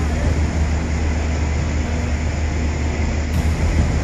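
Boat's engine running with a steady low rumble, with an even hiss over it.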